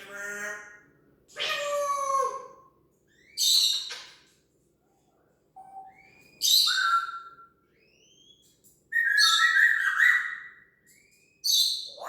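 African grey parrot calling and mimicking: a string of separate loud squawks and harsh noisy calls, each under about a second and a half, with short upward-sliding whistles in between.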